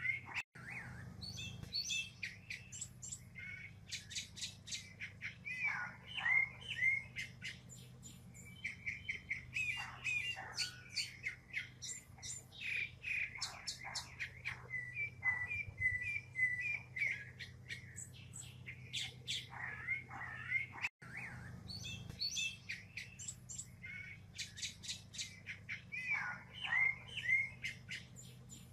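Northern mockingbird singing a long, varied run of phrases, each phrase repeated several times before the next. A faint low hum lies underneath.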